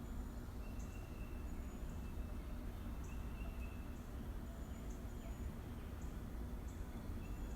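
Nature ambience: a steady low rumble under repeated short, high chirping calls, some shrill and brief, some a little longer and lower.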